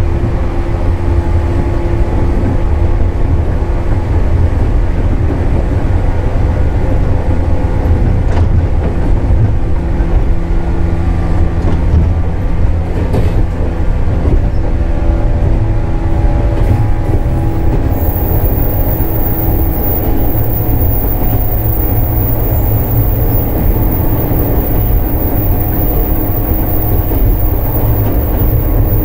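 JR Kyushu 415 series electric multiple unit running at steady speed, heard from on board: a steady traction-motor hum over the rumble of wheels on rail. A thin, very high-pitched whine comes in about two-thirds of the way through.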